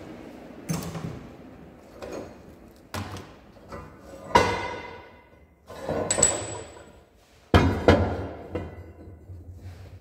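Pieces of steel knocked and set down on a steel welding table, a series of metallic clanks, several of them ringing on briefly.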